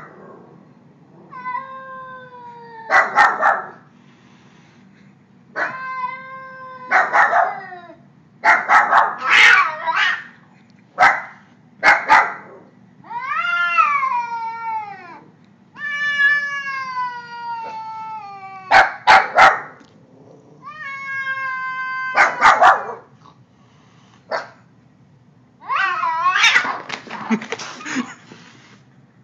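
A cat yowling over and over, long wailing calls that rise and fall in pitch, broken by short harsh hisses: the defensive threat sounds of a frightened cat squaring up to a stuffed tiger toy.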